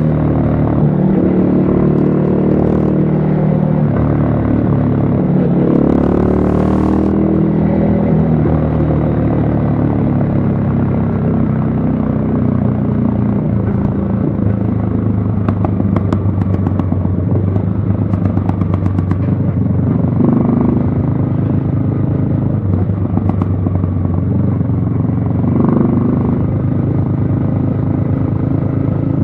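Yamaha XSR155's single-cylinder engine running under way. Its pitch rises and falls with the throttle and gear changes over the first several seconds, then holds a steadier note with small swells.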